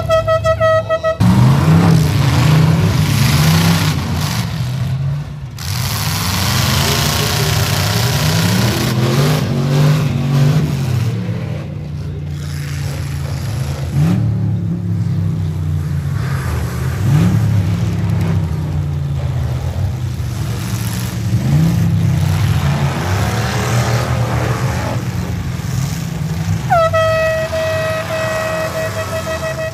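Demolition-derby trucks' engines revving, their pitch rising and falling again and again, with a horn sounding for about a second at the start and a longer horn blast near the end.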